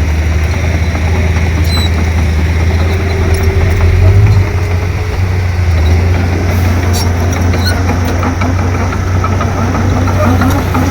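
Komatsu D31P crawler bulldozer's diesel engine running with a steady low drone that swells briefly about four seconds in.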